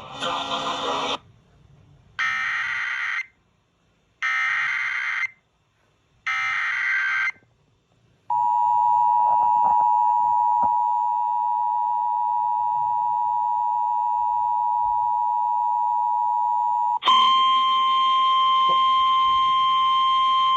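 Emergency Alert System broadcast signals: three short, harsh SAME header data bursts about two seconds apart, then the steady two-tone EAS attention signal held for about nine seconds. Near the end a louder single steady alert tone starts abruptly, opening the next relayed alert.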